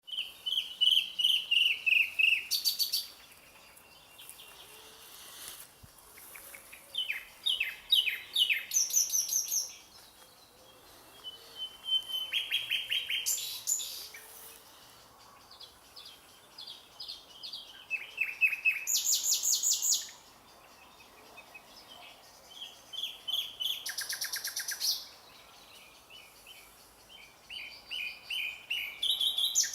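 Nightingale singing: phrases of two to three seconds made of rapidly repeated notes and fast trills, some very high, each followed by a pause of a few seconds.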